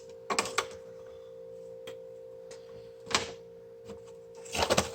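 Scattered clicks and knocks of vacuum-sealer parts and tools being handled during disassembly, with one louder knock about three seconds in. A steady, even-pitched hum runs underneath.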